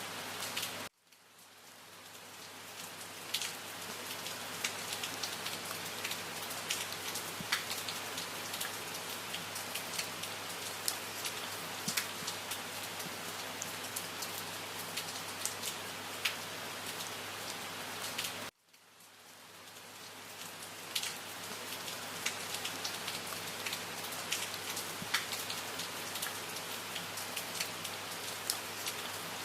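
Steady rain with many distinct drops striking a surface. The sound cuts out abruptly about a second in and again a little past halfway, each time fading back up over a few seconds.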